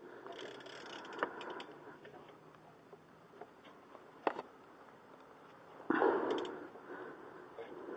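Hand tools working on a car's rear brake caliper: a few sharp metallic clicks and small ticks, with a louder burst of scraping handling noise about six seconds in.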